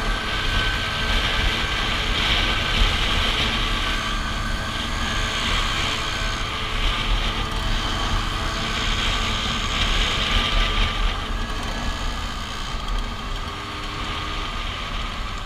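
Vespa scooters running at cruising speed in a group ride, a steady engine drone mixed with wind rushing and buffeting on the handlebar-mounted microphone.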